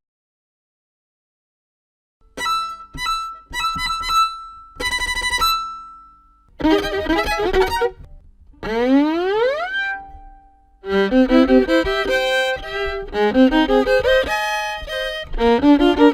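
Violin starting about two seconds in with a few short bowed notes, then one long upward slide in pitch, then a fast run of quick notes.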